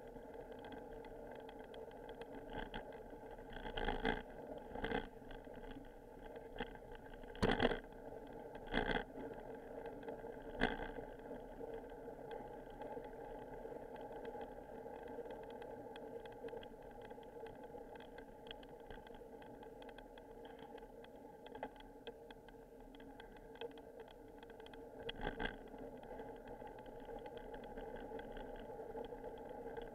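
Ride noise picked up by a handlebar-mounted bicycle video recorder: a steady hum and rattle of the bike rolling on pavement. Sharp knocks of the mount come in a cluster between about four and eleven seconds in, and again later on, as the bike jolts over bumps.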